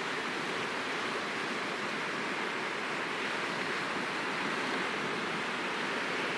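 Sea washing on the shore: a steady, even hiss of surf with no single breaker standing out.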